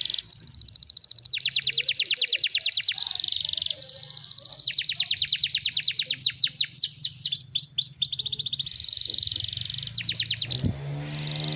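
Domestic canary singing a fast song of tight, rapid trills: phrases of very quickly repeated high notes that switch to a new trill every second or so, with a run of quick downward-sliding notes partway through.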